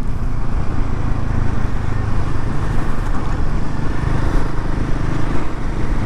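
Royal Enfield Himalayan 450's single-cylinder engine running steadily while riding, mixed with steady road and wind rush.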